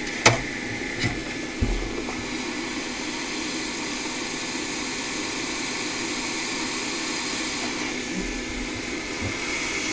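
Steady blowing hiss of a hot air rework station (Quick 861DW) running, with three short clicks in the first two seconds, the first the loudest.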